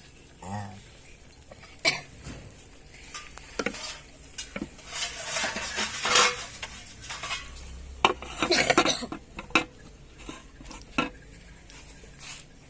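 Metal utensil clinking and scraping against a cooking pot while food is stirred. There are sharp knocks, and longer scrapes about five and eight seconds in.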